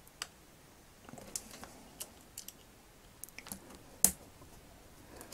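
Pocket-knife blade prying into the top of a vintage action figure's hard styrene leg to split it open around a broken T-bar: faint scattered clicks of blade on plastic, with one sharp, louder click about four seconds in.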